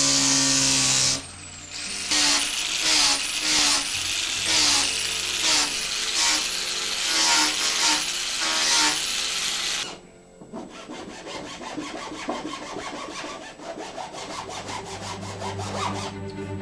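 An electric disc sander runs on wood with a steady whine and cuts off about a second in. It is followed by rhythmic hand strokes on wood, about one and a half a second for some eight seconds. Then comes a quieter scraping, with background music coming in near the end.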